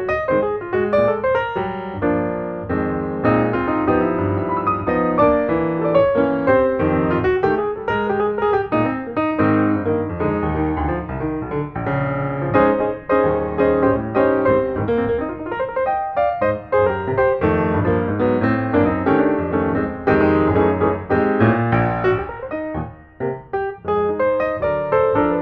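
Background piano music, a busy flowing piece with many quick notes.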